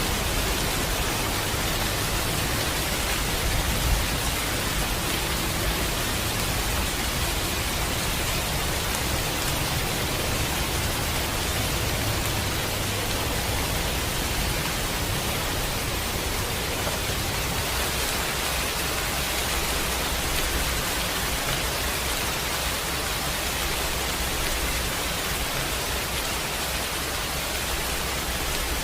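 Steady, dense hiss of heavy rain, with a low rumble of distant thunder swelling and fading underneath and a single sharp knock about four seconds in.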